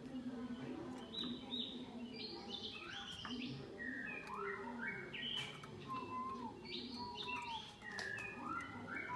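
Several ornamental songbirds chirping and singing in quick, overlapping phrases of short high notes.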